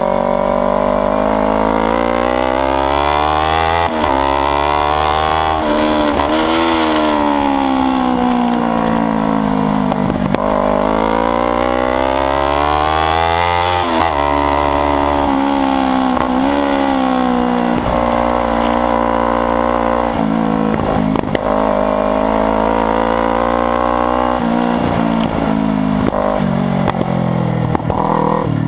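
Kawasaki Ninja 300's parallel-twin engine running loud under hard riding, the revs climbing and falling again and again as the bike accelerates and slows, with a sharp drop in pitch about halfway through.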